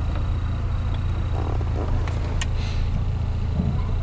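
Jaguar 3.8S straight-six running, heard from inside the cabin as a steady low hum, with a few faint clicks.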